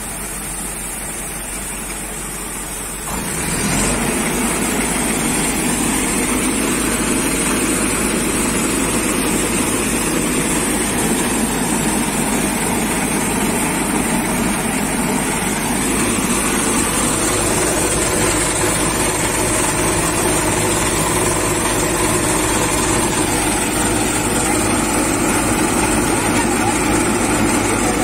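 John Deere combine harvester running under load while threshing mustard, its engine and threshing works making a steady mechanical din. It grows louder about three seconds in.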